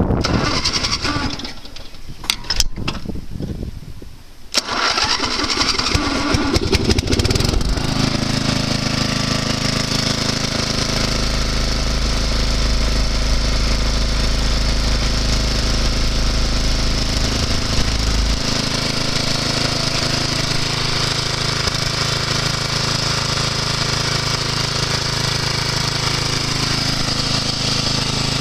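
12 hp Yardman LT1240 lawn tractor engine being started: a few seconds of irregular cranking, then the engine catches about four and a half seconds in, runs unevenly for a few seconds and settles into a steady run.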